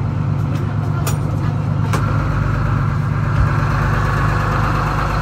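A boat's diesel engine idling with a steady low hum. Two light knocks come about one and two seconds in.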